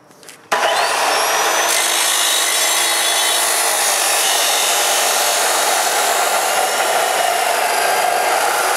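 Abrasive chop saw starting about half a second in, its whine rising to speed, then cutting steadily through welded steel angle iron with a harsh grinding.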